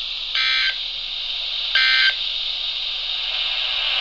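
EAS SAME end-of-message data burst sounding twice, each a short buzzy warble about a third of a second long, about a second and a half apart. It marks the end of the alert message. A steady hiss runs underneath and grows louder near the end.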